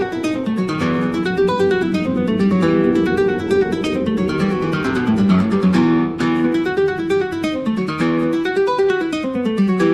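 Music of fast plucked acoustic guitar in a Latin, flamenco-like style, quick notes running down and back up in repeated phrases.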